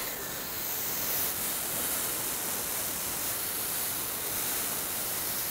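A handheld blow dryer running steadily, its stream of air blowing loose cut hair off a freshly cut head.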